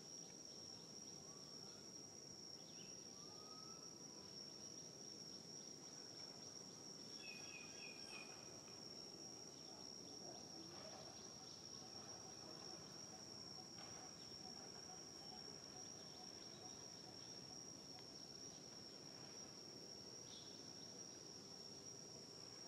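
Faint, steady, high-pitched insect drone, with a short run of chirps about seven seconds in.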